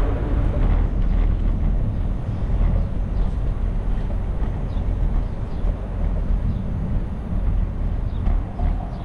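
Wind buffeting the microphone of a camera riding along on a moving bicycle: a steady low rumble with road noise under it.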